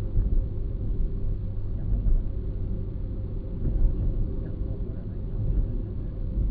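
Car driving along a road: a steady low rumble of engine and tyre noise with small swells in level.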